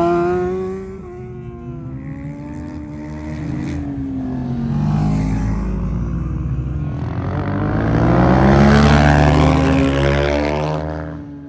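Racing superbike engines at high revs as the bikes pass on the circuit. One engine drops in pitch and fades in the first second, and quieter passes follow. Then several engines swell in pitch and loudness together, loudest about nine seconds in, and fade near the end.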